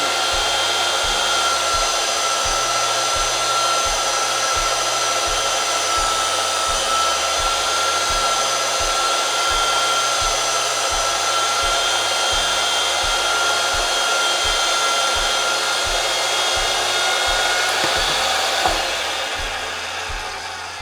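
Electric pipe threading machine spinning a steel gas pipe against its wheel cutter attachment: a steady motor whine with a faint low knock repeating a little under twice a second. Near the end it winds down as the pipe is cut through.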